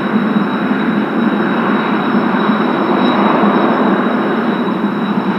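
Kawasaki T-4 jet trainers' twin turbofan engines running on the ground: a steady rushing noise with a thin, high whine held throughout.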